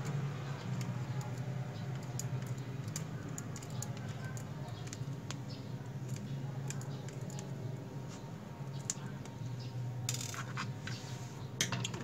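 Small screwdriver working screws out of a laptop's plastic base: scattered light clicks and scrapes of the metal tip in the screw heads, over a steady low hum. A brief rustle comes near the end.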